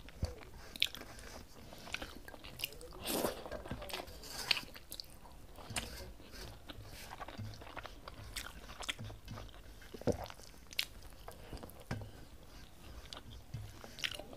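Close-up eating sounds of rice being chewed with irregular wet smacks and clicks. Fingers gather the last grains from a stainless steel plate.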